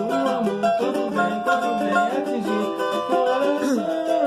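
Cavaquinho playing an instrumental passage of a Brazilian song over a steady percussion beat, with a melody line that slides between notes.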